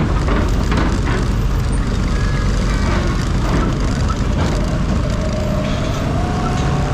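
Motor vehicle engines running steadily as vehicles drive off a ferry's vehicle deck, with a faint whine that rises slightly near the end.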